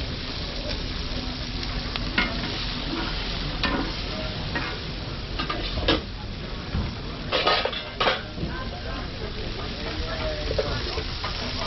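Pork sizzling on a flat-top griddle, a steady frying hiss, with metal tongs clinking against stainless steel food containers about half a dozen times.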